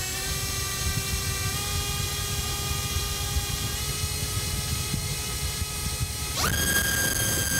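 iFlight XING X2207 2750KV brushless motor spinning a Gemfan 5040 propeller on a thrust stand: a steady whine at part throttle that steps up slightly twice. About six and a half seconds in it jumps sharply to a higher pitch at full throttle, the run that gives over 1.5 kg of thrust at about 38 A.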